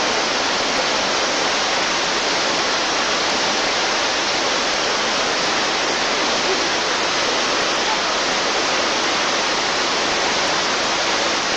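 Steady, even rushing hiss with no change in level and no other sound in it.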